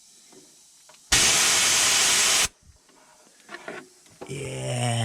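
Compressed-air blow gun giving one loud burst of hiss lasting about a second and a half, then cutting off sharply: air being blown into a car's air-conditioning line to pressure-test a hose joint for leaks after new O-rings. A short low hum follows near the end.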